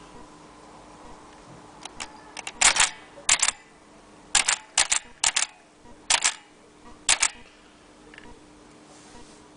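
Aluminum Blick Featherweight typewriter being typed on: about ten sharp clacks of keys striking, some in quick pairs, at an uneven pace between about two and seven seconds in.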